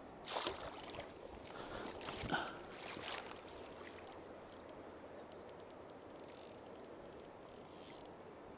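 Water splashing and sloshing in a series of irregular bursts for about the first three seconds, then the steady rush of flowing river water.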